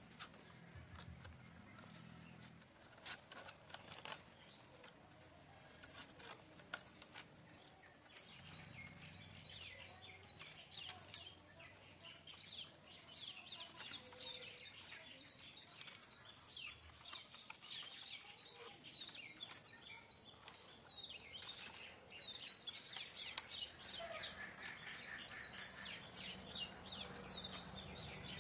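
Small birds chirping in quick, falling high notes, growing busier after about nine seconds, with a few light clicks and taps of dry bamboo strips being handled during weaving.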